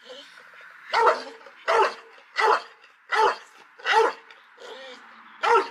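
Dog barking repeatedly behind a kennel gate: six sharp barks, evenly spaced about two-thirds of a second apart, with a longer pause before the last one.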